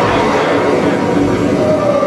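Cartoon soundtrack music playing over a room's loudspeakers and picked up by a camera in the room. A tone glides down near the end.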